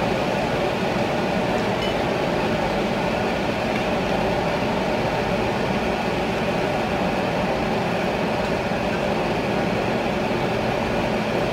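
Kue kembang goyang rice-flour batter frying in a pan of hot oil: a steady sizzle that keeps an even level throughout.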